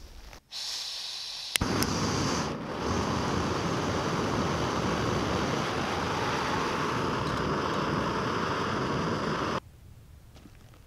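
Backpacking canister gas stove: a sharp igniter click about a second and a half in, then the burner hissing steadily until it cuts off suddenly near the end.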